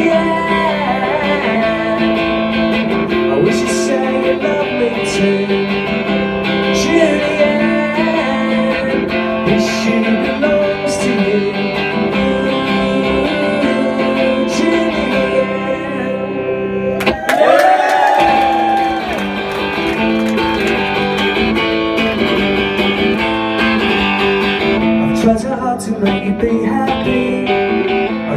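Live solo song on electric guitar, strummed, with a man's voice singing at times. About 17 seconds in, the playing briefly drops away and comes back with a hard strum.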